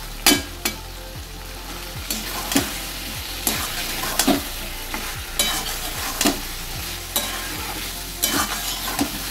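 Metal spatula scraping and knocking against a metal kadai, about once a second, as boiled potato chunks are stirred into a sizzling spiced masala, with a steady frying sizzle underneath. The potatoes are being fried in the masala (kosha stage of aloo dum).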